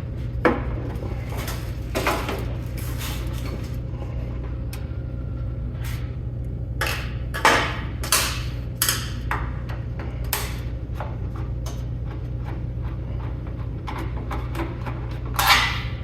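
Scattered metallic clicks and clanks of screws and sheet-metal side panels being handled as a plasma cutter's case is taken apart, the loudest knocks about halfway through and near the end, over a steady low hum.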